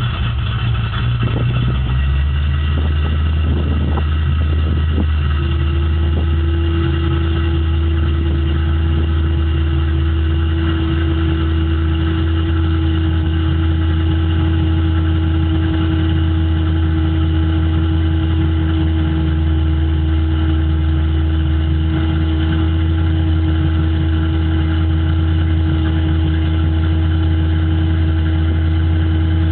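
1995 Ford Mustang GT's cammed 5.0 V8 idling just after start-up, its note dropping and settling about two seconds in. A steady hum comes in about five seconds in and holds over the idle; together with the high idle, this hum was traced to a faulty idle air control valve.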